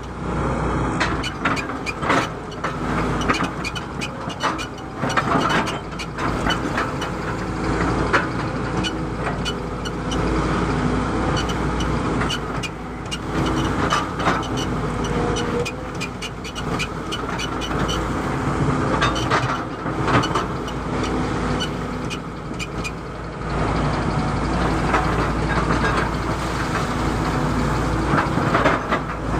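Excavator's diesel engine running steadily under working load, with frequent short knocks and clanks throughout as the machine works.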